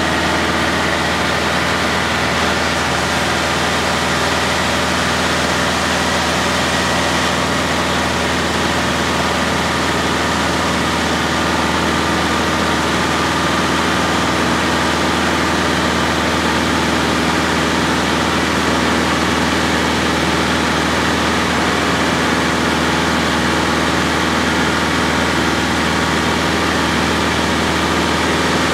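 Single-engine light aircraft's piston engine and propeller running steadily at a constant pitch in cruise flight, heard from inside the cockpit.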